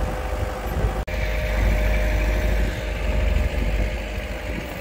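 A vehicle engine idling with a steady low rumble, briefly cut off about a second in.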